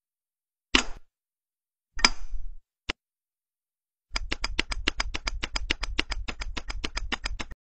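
Two short noisy bursts and a single click, then a fast, even run of sharp clicks, about seven a second, over a low rumble, lasting about three and a half seconds and cutting off suddenly.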